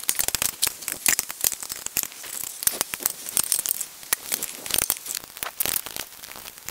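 Rapid, irregular clicking and scraping of a metal wrench turning out the half-inch bolts that hold a pressure washer's pump to the bottom of its engine.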